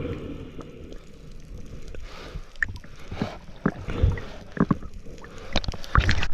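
Water sloshing and splashing, with scattered knocks that come thicker near the end.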